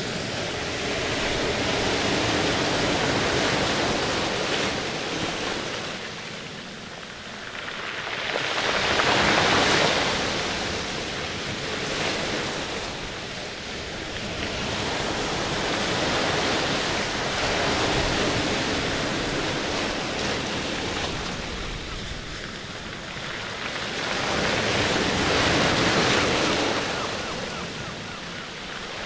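Rushing, surf-like water noise that swells and fades every few seconds.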